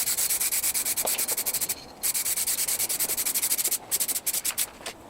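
Air spray gun hissing as it sprays clear gloss lacquer, in two long passes followed by several short spurts that stop near the end.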